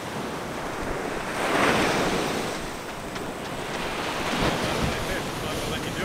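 Ocean surf washing onto the beach, with wind buffeting the microphone; a wave swells up and breaks about a second and a half in.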